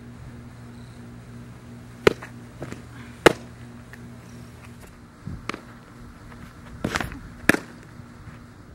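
Windmill-pitched softballs smacking into a catcher's mitt: a few sharp pops, the loudest a little over three seconds in and another near the end, with softer knocks between them. A faint steady hum lies under them for the first half.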